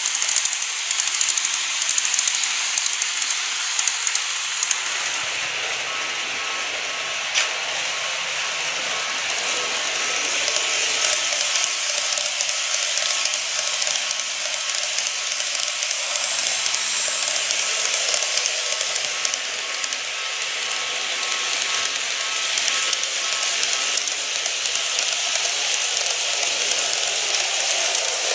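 Model electric trains running on sectional track: a steady rolling hiss of small metal wheels on the rails, with a faint steady motor whine through the middle and a single click about seven seconds in.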